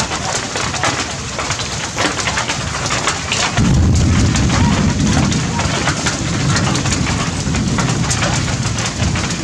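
Steady rain falling on tree foliage: an even hiss with many pattering drops. About a third of the way in, a deep low rumble joins it and lasts most of the rest.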